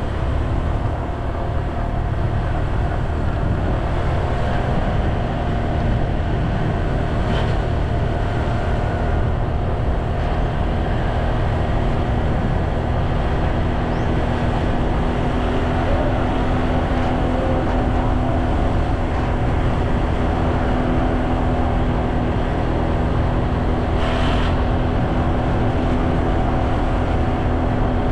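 Vehicle engine running steadily at cruising speed while riding along a road, with heavy wind rumble on the microphone.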